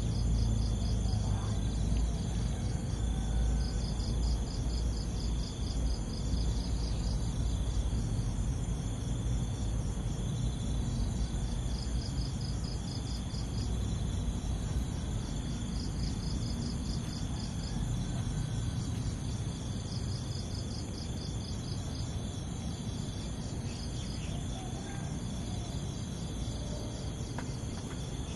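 Insects chirring in a steady chorus with a rapid even pulse, over a low background rumble.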